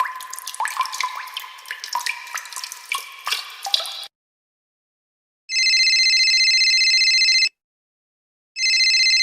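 Water dripping and plinking, many quick drops that each glide upward in pitch, for about four seconds. After a moment of silence an electronic telephone ring starts, sounding for about two seconds, pausing a second, then ringing again near the end.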